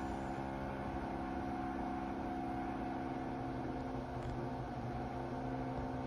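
Hotpoint Ariston AQ83D washing machine running its softener rinse: the motor turning the drum, a steady hum with several fixed tones under a soft wash of noise.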